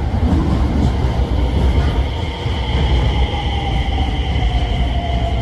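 JR electric train running past the microphone: a heavy low rumble with a motor whine that falls slowly in pitch.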